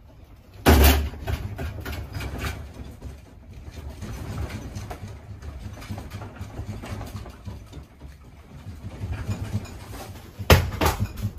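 A room shaking in a strong earthquake: a low, uneven rumble with rattling and clatter throughout. Two loud knocks stand out, one about a second in and one near the end.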